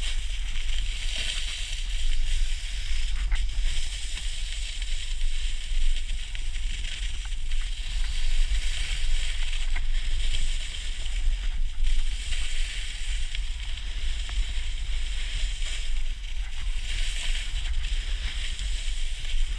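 Snowboard sliding and scraping over packed snow, a hiss that swells and fades every few seconds as the board turns. Wind buffets the camera microphone with a steady low rumble.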